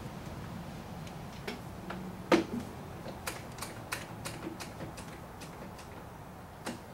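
Irregular light clicks and taps of hands handling tools and wooden parts on a workbench, with one louder knock about two seconds in.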